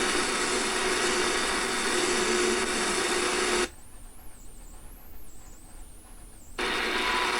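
Shortwave receiver scanning: static hiss with a low steady tone, which cuts out suddenly for about three seconds and then returns. A short beep comes near the end, the start of the once-a-second ticks of the Canadian CHU time station on 7.850 MHz.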